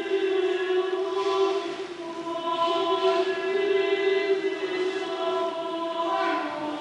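A church choir chanting, holding long notes over a steady low line, with soft hissing consonants between phrases.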